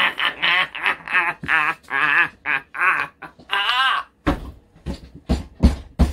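A man's loud wordless vocalizing in rapid pitched bursts for about four seconds, then a run of sharp thumps with a heavy low end.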